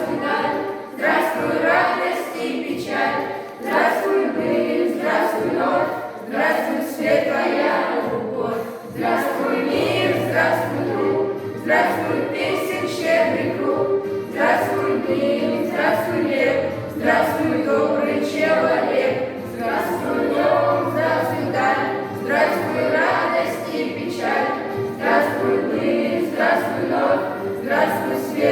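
A group of voices singing a song together in chorus over an instrumental backing. The bass of the backing comes in about ten seconds in.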